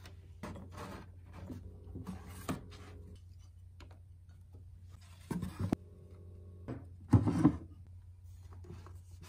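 Paperback books being handled on a wooden bookshelf: scattered soft knocks and scrapes as they are slid out and set down. The loudest is a quick pair of knocks about seven seconds in, over a low steady hum.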